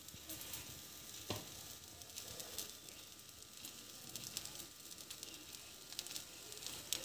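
Faint sizzling and crackling of butter under slices of bread frying in a pan over a low gas flame, with a few small taps as grated cheese is sprinkled on top.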